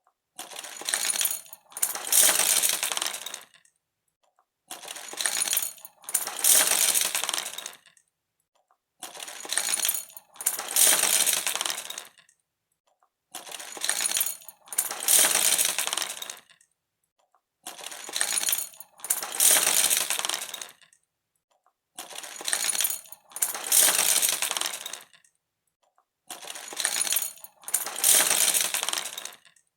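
Clattering of small hard objects falling and rattling together, a short burst followed by a longer, louder one. The same pair repeats about every four seconds, seven times.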